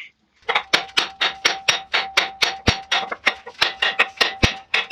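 Hand hammer striking a drift to open the eye of a hot hammer head on the anvil, fast even blows about five a second, with a steady ringing tone under the blows.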